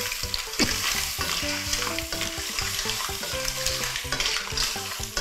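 Surf clams in their shells sizzling in a hot wok with sauce, basil and chilies while a spatula stirs and tosses them: an even sizzle broken by frequent scrapes and knocks of spatula and shells against the pan.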